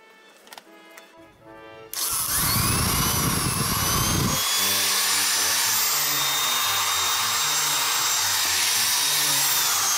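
Lister Stablemate cattle clipper's electric motor switched on about two seconds in and running steadily with a high whine, a test run after the power cord was spliced.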